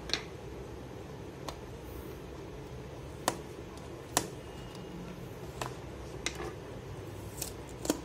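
Fingernail picking at and tearing a clear seal sticker on a cardboard box: scattered sharp clicks and taps, about eight of them, the loudest a little after three and four seconds in, over a steady low hum.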